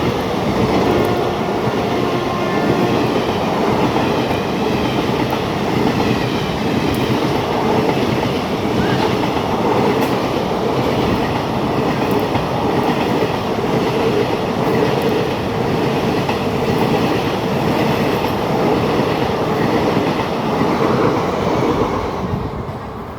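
Express passenger train with ICF coaches passing close by at speed: a steady loud rumble and clickety-clack of wheels over rail joints, which drops away about a second before the end.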